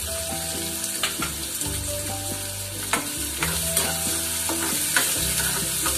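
Chopped onions and green chillies sizzling in hot oil in a metal kadhai, stirred with a metal ladle that clinks against the pan several times.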